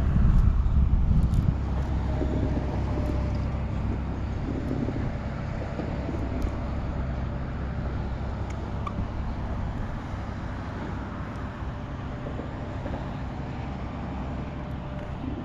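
A steady low motor rumble with a faint held hum above it. It is loudest and choppiest in the first second and a half, then eases off slowly.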